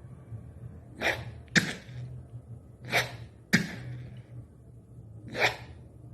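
Homemade sound effects: five short, sharp bursts of breathy noise, two quick pairs and then a single one, over a low steady hum.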